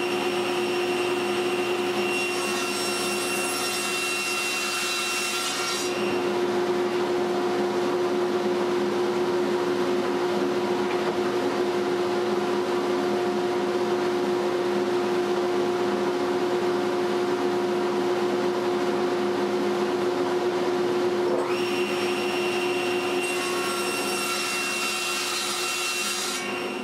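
Table saw running and ripping a wide hardwood board to rough width, a steady motor hum with the noise of the blade in the wood. A higher whine sits over it for the first several seconds and comes back for the last few.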